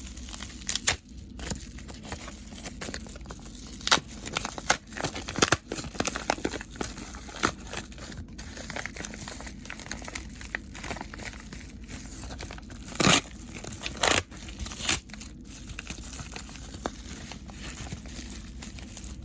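A mailed package being opened by hand: its packaging crinkling, rustling and tearing in a string of sharp crackles, with two louder rips about two-thirds of the way through.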